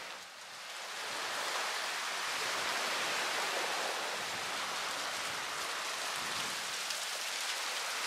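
Steady rushing, hiss-like ambient noise with no distinct events. It dips just after the start and swells back within about a second.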